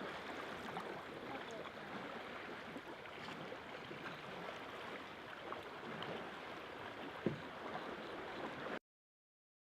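Faint, steady water sound, gentle lapping or trickling with a few small splashes. It cuts off suddenly to silence near the end.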